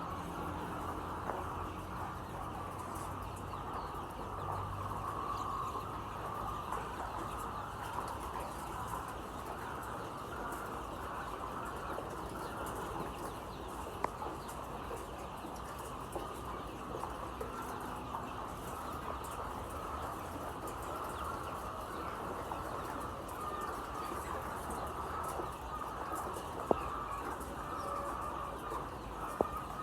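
A flock of chickens in a poultry shed, a steady dense mass of calls with no pause, broken by a few sharp clicks.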